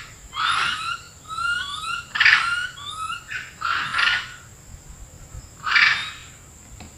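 Long-tailed macaques calling noisily: several short harsh calls a second or two apart, with quick rising chirps between them.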